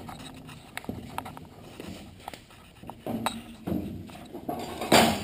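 Footsteps on a concrete shop floor, with scattered light knocks and clicks of handling, and one short, louder burst of noise near the end.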